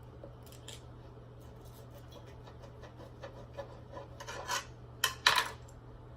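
Table knife sawing and scraping against a plate while cutting steak: scattered short strokes, the loudest few about four to five and a half seconds in.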